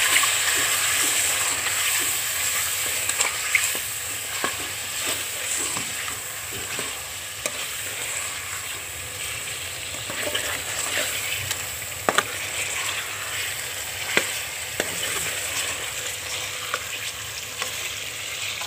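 Chicken pieces and spice masala sizzling in hot oil in a metal pot, stirred with a metal ladle that scrapes and clicks against the pot now and then. This is the masala being fried (bhuna) with the chicken.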